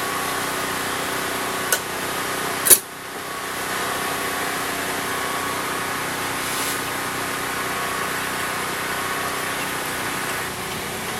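Steady mechanical hum, like an engine running, with two sharp clicks; the louder one comes almost three seconds in.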